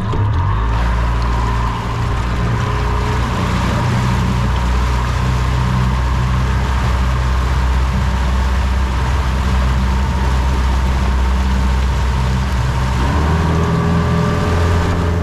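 Motorboat engine running steadily under way, with a rush of wind and water over it; the engine note shifts slightly near the end.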